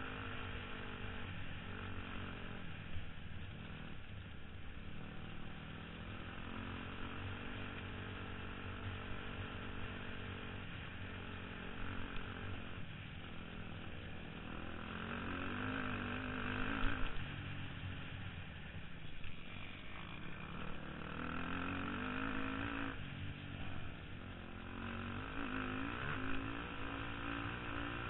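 Off-road vehicle engine under way on a dirt trail, heard from the rider's helmet. Its pitch rises and falls repeatedly as the throttle opens and closes through the gears.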